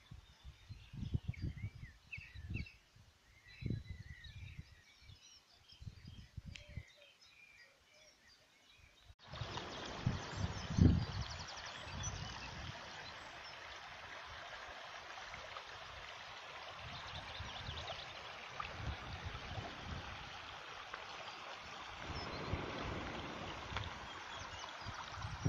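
Wind gusting on the microphone with small birds chirping. After an abrupt cut about nine seconds in, a steady rushing noise runs under further wind gusts.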